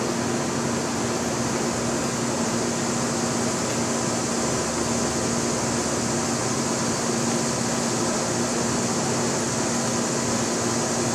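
Steady hiss of water spraying from an oscillating lawn sprinkler, with a steady low hum underneath.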